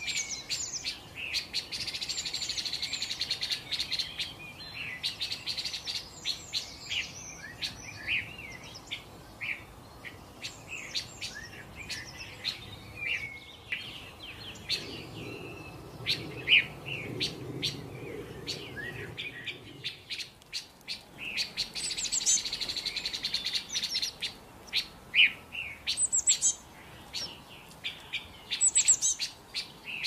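Songbird singing: a busy run of sharp chirps, quick sweeping notes and fast trills, with bursts of rapid trilling near the start and again past the middle.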